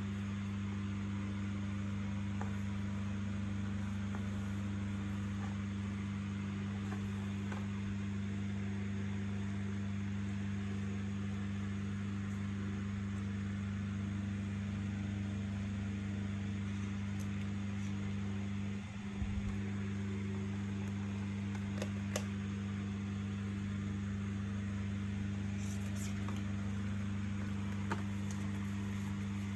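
A steady low electrical hum with a few faint clicks, one brief disturbance about two-thirds of the way through.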